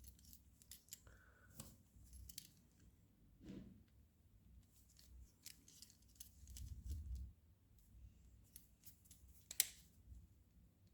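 Faint scattered clicks and light scraping of the small metal parts of a 1:2 scale miniature Colt 1911 being handled and taken apart, with one sharper click near the end.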